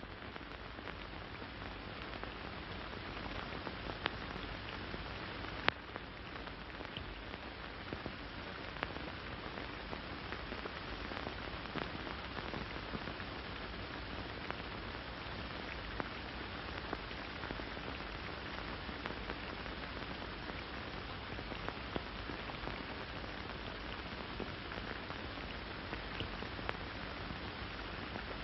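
Steady hiss and crackle with scattered small pops: the surface noise of an early-1930s film's optical soundtrack.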